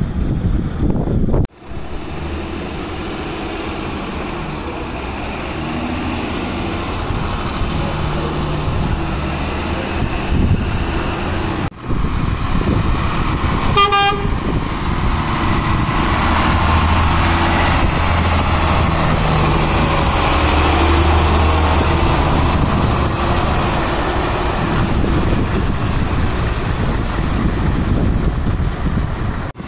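Heavy truck engine running steadily, with a short horn toot about halfway through.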